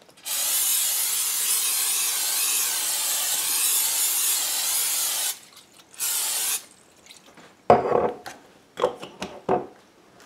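Aerosol cooking spray hissing steadily for about five seconds as it coats the inside of a stoneware slow-cooker insert, then one short second spray. Near the end come a few knocks as the crock pot is handled.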